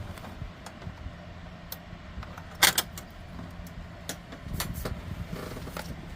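Small metal parts of a safe's combination lock clicking and clinking as it is handled, with a sharp double clatter about two and a half seconds in and a run of rattling later on.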